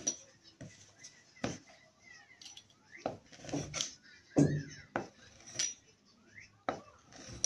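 A small cutter clicking, tapping and scraping on a work board as sugar paste is cut: irregular sharp clicks and a few knocks, loudest around the middle.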